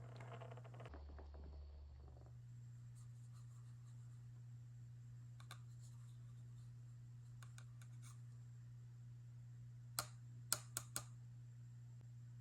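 Quiet handling of toy pieces and packaging over a low steady hum: a rustle of packaging that dies away about a second in, a few faint taps, then four sharp clicks near the end as small hard toy pieces are set down.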